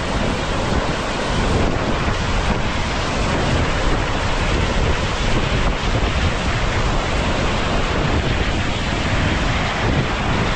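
Blacksmith's Fork River running high with spring snowmelt runoff, a loud, steady rush of water.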